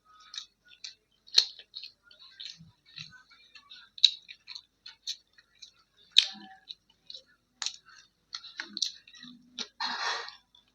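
Close-miked eating sounds: irregular wet mouth clicks and smacks while chewing kadhi pakoda with roti, with a longer, noisier mouth sound near the end.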